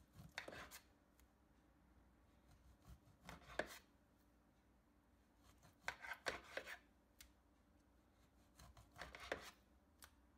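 Kitchen knife cutting raw chicken breast into pieces in a glass baking dish: four short bursts of quick cutting strokes, the blade clicking against the dish.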